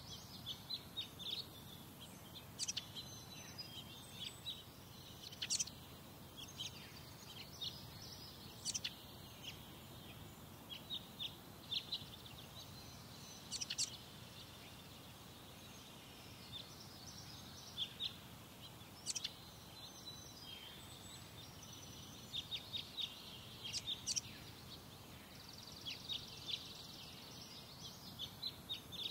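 Birds chirping: many short, sharp, high-pitched calls in frequent clusters, over a steady low background rumble.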